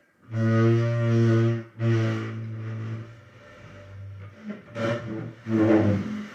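Chair creaking in long, low, horn-like tones. One tone is held for about a second and a half, a shorter one follows, and a rougher, scratchier creak comes near the end.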